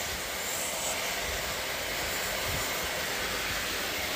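Oxyfuel cutting torch's preheat flame burning with a steady, even rushing hiss.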